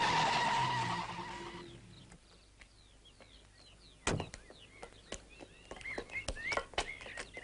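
A car's engine fading away as it drives off over the first two seconds, then small birds chirping with several sharp knocks, the loudest about four seconds in.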